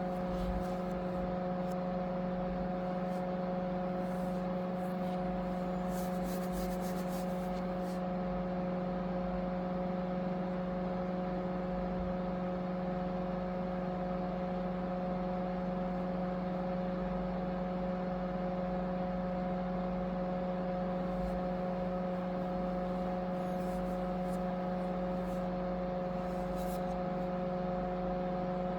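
Small electric motor of a homemade air cooler running with a steady, even hum.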